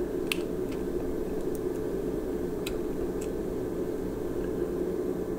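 Steady low background hum with a few light clicks from handling test-lead clips on a small metal instrument panel.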